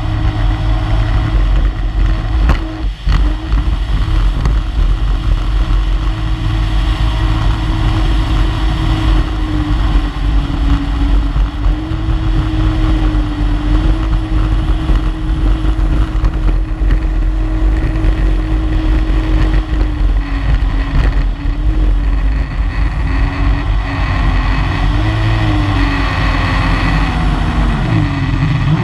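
Small powerboat's engine running at speed with a steady drone, its pitch wavering a little, over heavy wind and water rush. Near the end the engine note falls as it throttles back.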